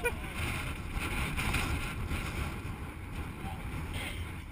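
Wind buffeting the camera microphone: a steady low rumble with a rougher hiss over it.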